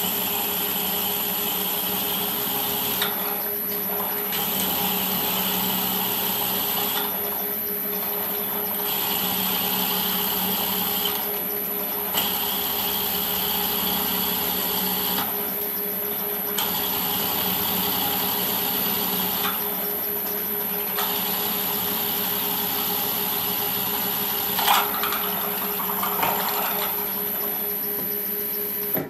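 Milling machine spindle running steadily with a high whine while a twist drill bores into a metal block clamped in the vice. The cutting noise drops out for about a second several times as the drill is backed out to clear chips, and there are a couple of sharp clicks near the end.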